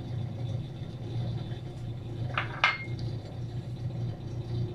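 A steady low hum, with two sharp clinks close together about two and a half seconds in, the second ringing briefly.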